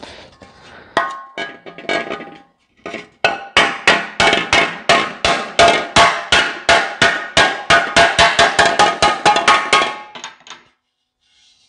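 Hammer blows on a dented sheet-metal tractor air cleaner cover, straightening it. After a few scattered taps, a steady run of ringing metallic strikes follows at about four a second for several seconds, then stops.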